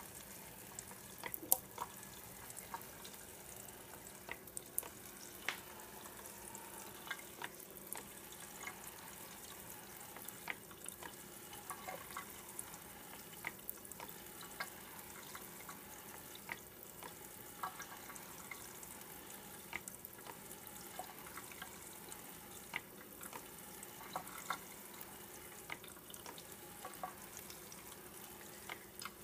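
Kitchen faucet spray running onto a cylindrical metal mesh vent filter and a sink basin, a steady hiss of water. Sharp, irregular clicks and ticks sound through it, a few every second.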